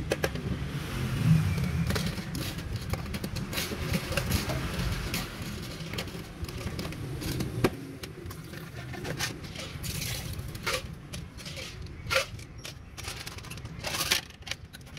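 Low engine rumble of nearby street traffic, strongest in the first few seconds, with scattered sharp clicks and knocks from plastic cups, a pitcher and ice being handled.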